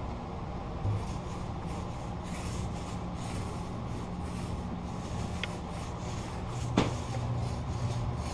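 Small quarter-inch-nap paint roller rolling paint onto a wooden door panel: soft repeated swishing strokes over a steady low hum, with one sharp click a little before the end.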